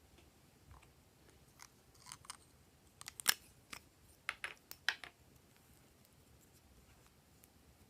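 Slime being handled, giving a scattered run of small crackles and clicks for about three seconds, the loudest a sharp snap a little past three seconds in.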